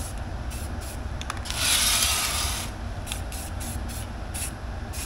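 Aerosol spray paint can hissing in one burst of about a second, starting about a second and a half in, followed by a couple of short puffs. Underneath is the steady low hum of a Vevor ventilation fan extracting the fumes.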